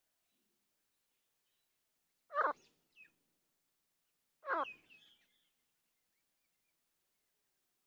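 Grey francolin, a female, giving two short, harsh calls about two seconds apart, each followed by a fainter short note.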